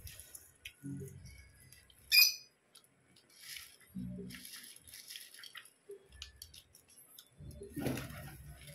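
Close-up chewing and crunching of puffed rice with chickpeas, in irregular bouts. A short, sharp high-pitched chirp about two seconds in is the loudest sound.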